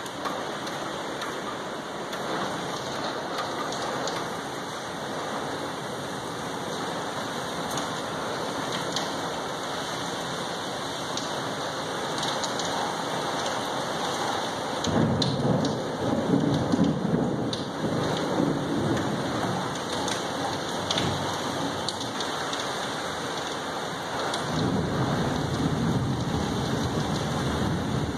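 Heavy rain from a severe thunderstorm falling steadily, with thunder rolling for several seconds about halfway through and again near the end.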